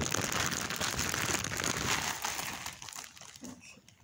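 Plastic bag crinkling as it is handled, dense for the first couple of seconds and then fading away.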